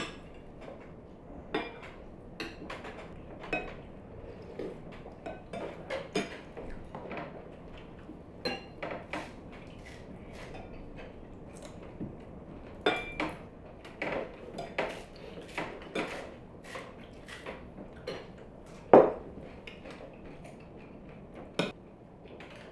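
Metal spoons clinking and scraping against ceramic soup bowls as several people eat, in irregular short chinks, with one louder clink late on.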